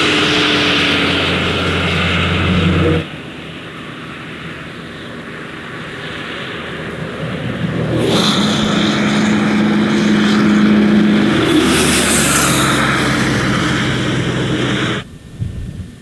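A motor engine running steadily over a rushing hiss. It drops away suddenly about three seconds in, swells back up and holds, then cuts off shortly before the end.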